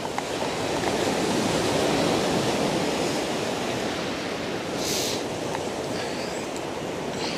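Sea surf washing steadily on a beach, swelling gently and easing back, with one short high hiss about five seconds in.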